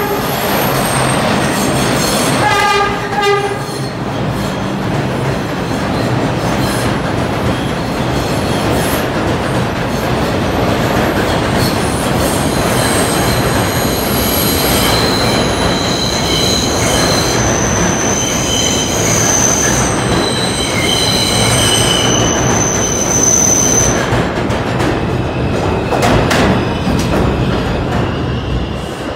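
An R142 subway train running through a station without stopping. Its horn sounds at the start and again about three seconds in. The cars then rush past with a steady loud rumble, with high-pitched wheel squeal from about twelve to twenty-four seconds in, and the rumble eases near the end as the train moves off.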